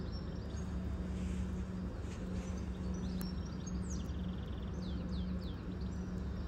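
Low steady hum and rumble of a Class 387 electric multiple unit pulling out, with small birds chirping and trilling over it, mostly around four to five seconds in.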